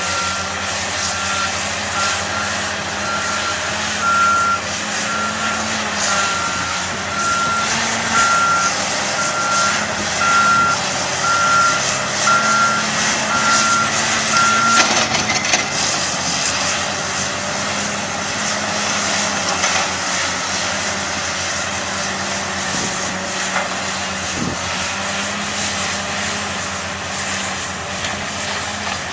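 Heavy construction machine's diesel engine running under load with clanking, while its backup alarm beeps in a steady rhythm; the beeping stops about halfway through and the engine carries on.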